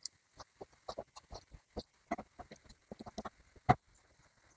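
Fresh spinach leaves dropped into a frying pan of tomato-sauced tofu and pressed down by hand and with a wooden spatula: irregular rustling and light crackles, with one sharper knock near the end.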